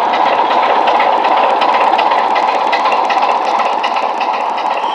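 Sound-fitted OO gauge model of a Class 27 diesel locomotive running past, its DCC decoder playing a recorded Class 27 diesel engine through a small onboard speaker: a steady, loud engine note with a fine rapid ticking beat and no deep bass.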